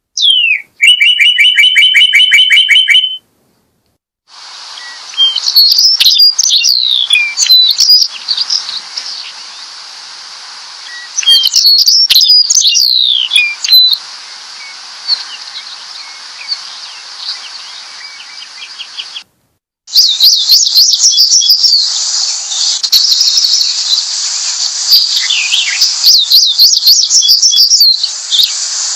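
Birds chirping and singing. It opens with a fast, evenly repeated trill for about three seconds. After a short silence come high chirps and warbling song over a steady hiss, broken by another brief silence about two-thirds of the way through.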